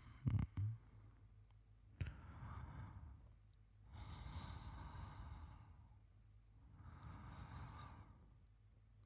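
A man's slow sleeping breaths close to the microphone, about three soft breaths spaced roughly three seconds apart. Two brief low thumps right at the start are the loudest sounds, and there is a sharp click about two seconds in.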